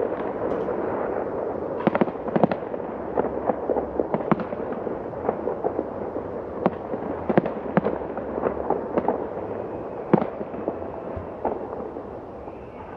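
Fireworks display shells bursting in quick succession: sharp, irregular bangs over a continuous crackle, thinning out and getting quieter in the last couple of seconds.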